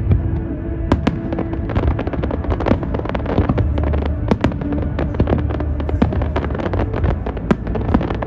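Fireworks display: a dense, continuous run of sharp bangs and crackles, dozens in quick succession, with steady low tones sounding underneath.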